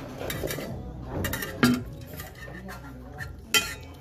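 Metal tableware clinking as a large metal noodle bowl is tipped up to drink the broth and handled, with two sharp clinks, one about a second and a half in and one near the end.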